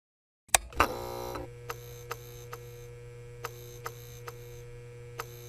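Clean, edited-in sound effect: a sharp click and a short chime, then light mechanical ticks in small groups over a steady low hum.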